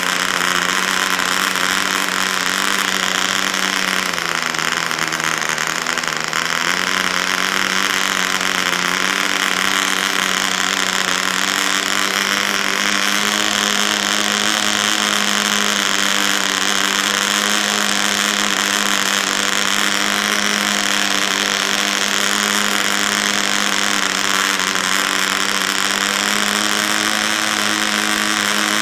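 PAW 55 model diesel engine, a 0.55 cc two-stroke, running flat out on a bench during break-in with a steady high-pitched buzz. About four seconds in its speed sags briefly, then it picks up again and holds steady.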